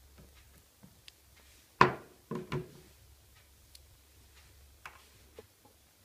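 RJ45 crimping tool's stripping blade squeezed shut on a shielded (STP) network cable to cut its outer jacket: one loud sharp click a little under two seconds in, then a shorter rattling click about half a second later, with a few light plastic ticks around them.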